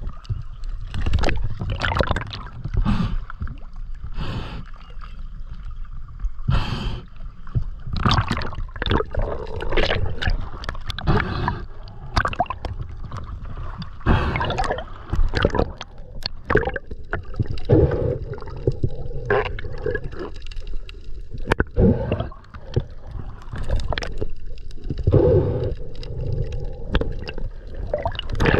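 Water sloshing and gurgling around a camera carried at the waterline, dipping in and out as the swimmer strokes, with irregular splashes throughout.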